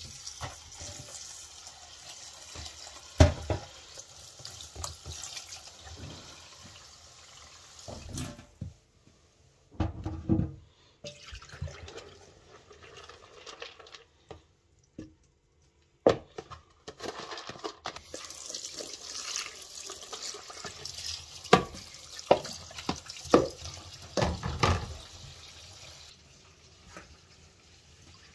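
Tap water running into a plastic bowl of wheat grain in a stainless steel sink, in two long stretches with a quieter gap between, broken by a few sharp knocks as the bowl is handled.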